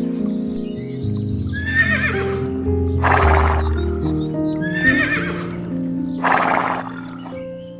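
Horse whinnying with a quavering call, each followed by a loud hissing burst, the same pair heard twice, over background music with sustained notes.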